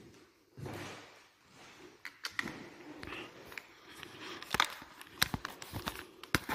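Footsteps and creaks on old wooden floorboards: irregular sharp knocks and clicks that grow busier in the second half.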